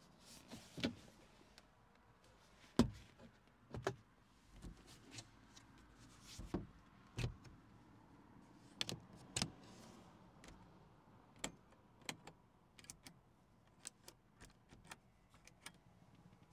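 A string of sharp clicks and knocks at irregular intervals, the loudest nearly three seconds in, from hands working the latches, lids and controls of a minivan's cabin.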